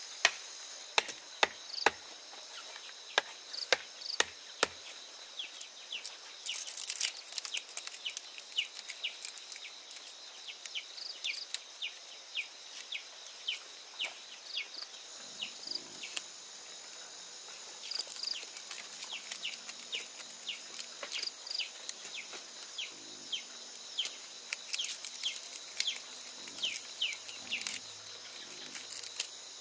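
Outdoor rural ambience: a steady high insect drone with many short, high, falling chirps throughout. A string of sharp knocks in the first five seconds.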